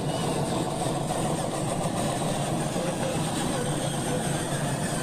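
A vehicle engine running steadily at an even level.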